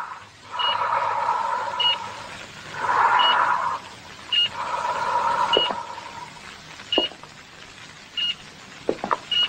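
Hospital heart monitor beeping, one short high beep about every 1.2 seconds. A louder hissing sound swells and fades three times in the first six seconds, and a few sharp knocks come near the end.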